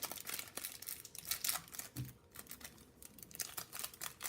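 Thin plastic card bags crinkling and rustling in the hands in irregular crackles.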